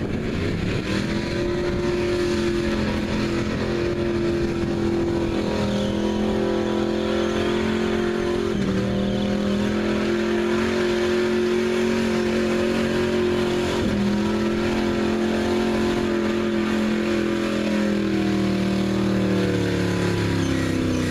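Square-body Chevrolet pickup's engine revved hard and held at high revs while it churns through a mud bog, wheels throwing mud. The revs drop abruptly and climb again twice, then fall away near the end.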